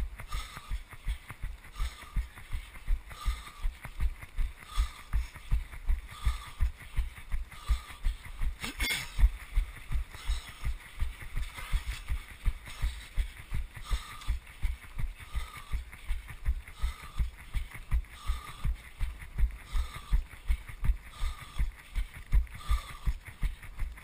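A runner's own footfalls jolting a body-worn action camera: steady low thuds at about three a second, a running cadence. There is one brief louder noise about nine seconds in.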